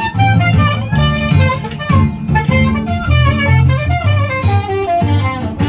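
Saxophone playing a jazzy melody live, over backing music with guitar and a steady bass line.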